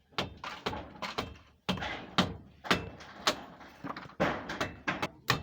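Demolition work on a house: repeated sharp knocks and bangs, about a dozen at an uneven two or three a second, each with a short ringing decay.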